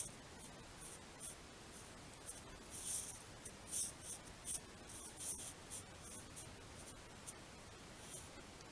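Snow crunching under a red fox's paws and muzzle as it steps and noses through it: a series of short crunches, busiest in the middle few seconds, with one more near the end, over a steady faint hiss.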